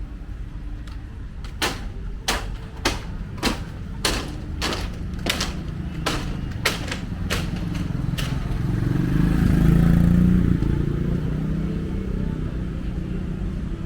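A string of sharp knocks, about two a second, followed by a motor vehicle, likely a motorcycle, passing close: its engine hum swells to a peak about two-thirds of the way through, then fades.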